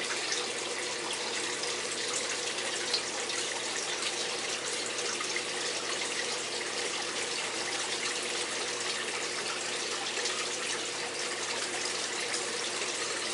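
Steady rush of moving water in a turtle tank, with many tiny crackles in it and a faint steady hum underneath.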